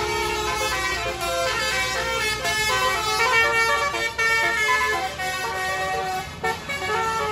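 Bus fitted with a Basuri "telolet" multi-tone musical horn, playing a fast melody of short notes that step up and down in pitch, several tones sounding together.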